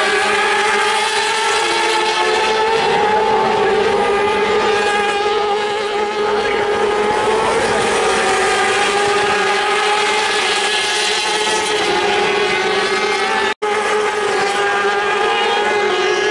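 Racing motorcycle engines running at high revs as several bikes lap the circuit: a continuous engine note with slight rises and falls in pitch. The sound cuts out for an instant near the end.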